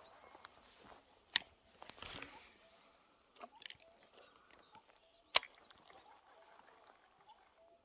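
Two sharp clicks about four seconds apart, the second the louder, with a short soft rustle between and faint handling noises.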